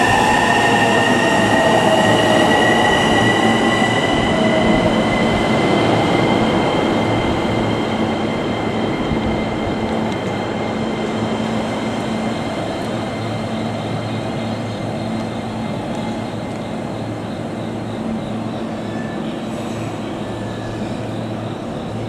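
A JR East E233/E231-series electric commuter train slowing to a stop at a platform. Its rolling noise slowly fades while a high whine slowly rises in pitch, and a lower tone falls away about five seconds in.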